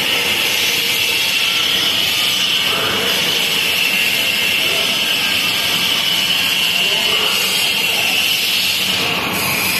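A rotary welding machine and its shop equipment running: a steady hiss with a constant high whine, unchanging throughout.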